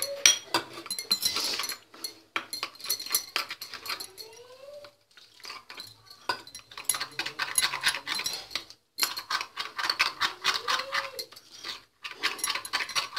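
Spoon stirring flour and water in a glass bowl, clinking and scraping against the glass in quick strokes as the flour is mixed into a batter, with a few brief pauses.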